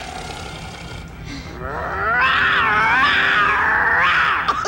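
A long, loud roar that swells in about a second and a half in, wavering up and down in pitch, and cuts off abruptly near the end.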